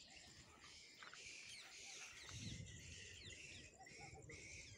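Near silence: faint outdoor ambience with small high bird chirps over a faint pulsing high hiss, and a brief low rumble about two and a half seconds in.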